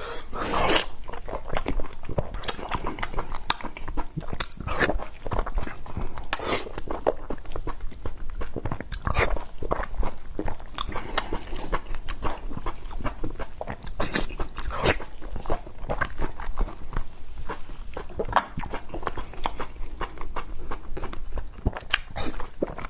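A person chewing and biting blood sausage close to the microphone: a steady run of wet smacks and clicks.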